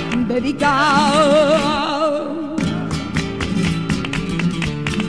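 Flamenco song in tango style: a singer holds a long, wavering note on the last word of a verse over guitar. About two and a half seconds in the voice stops and the flamenco guitar plays on alone with rhythmic strums.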